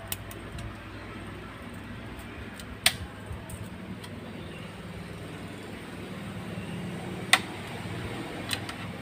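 Thin bicycle brake-cable wire being handled and bent by hand, giving a few sharp clicks, the two loudest about three and seven seconds in, over a steady low hum.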